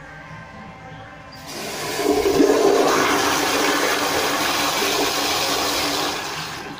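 American Standard Madera toilet with an exposed flushometer valve flushing: a sudden, loud, steady rush of water starts about a second and a half in, lasts about five seconds, and dies away near the end.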